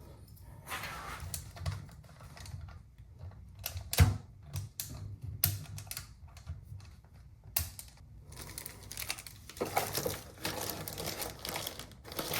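Irregular light clicks and taps of small hard parts and tools being handled on a workbench, with a sharper knock about 4 seconds in and another near 7.5 seconds, and busier tapping and rustling from about 9.5 seconds.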